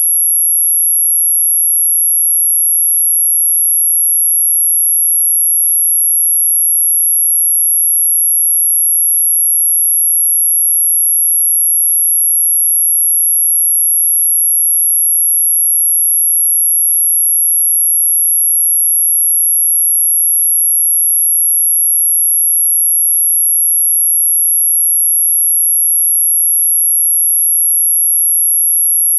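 A single pure, very high-pitched electronic tone held perfectly steady and unbroken, sold as an anti-mosquito repellent sound.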